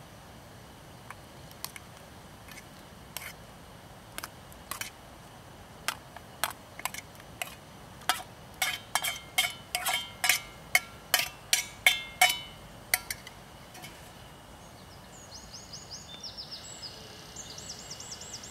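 A run of sharp clicks and knocks, some with a brief ring, coming sparsely at first, then faster and louder before stopping about two-thirds of the way in. Near the end a bird gives quick, high chirps.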